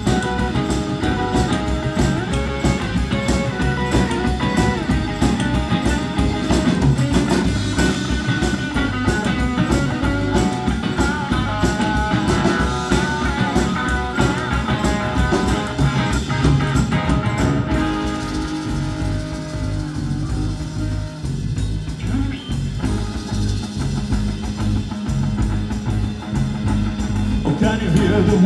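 Live rock 'n' roll band playing an instrumental passage: electric guitar over a plucked upright double bass and drum kit. The sound thins out about two-thirds of the way through, leaving mostly the bass and drums.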